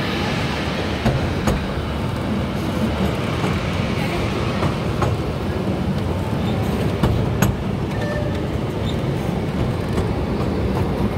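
Amusement-park ride train running along its rails: a steady rumble with a few sharp clacks, two of them close together about seven seconds in.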